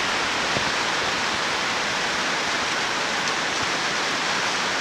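Heavy rain on a metal garage roof: a loud, even, steady hiss of drops with no let-up.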